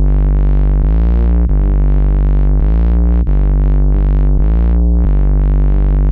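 Intro music played on synthesizer: loud, sustained chords that change about every second, with notes gliding in pitch between them and no beat yet.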